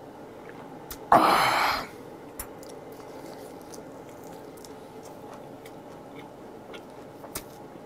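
A loud, breathy exclamation about a second in, the kind of gasp that follows knocking back a shot of liquor. It is followed by soft chewing, with small wet mouth clicks, of a leaf-wrapped bite of grilled eel.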